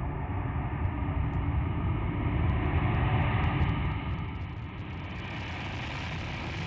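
Jet engines of a four-engine Boeing 747-400F at takeoff power as it rolls and lifts off, a steady rushing jet noise that swells a little midway and then eases.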